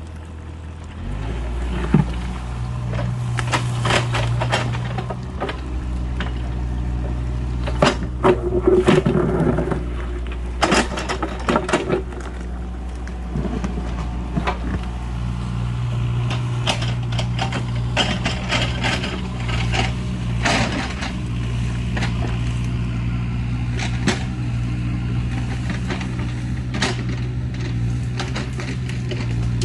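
Excavator's diesel engine running steadily under load, with repeated sharp clanks and scrapes of the bucket and arm working the soil.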